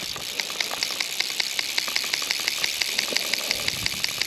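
Fly reel's click ratchet clicking rapidly and steadily, about a dozen clicks a second, as line moves through the reel while a hooked trout is being played.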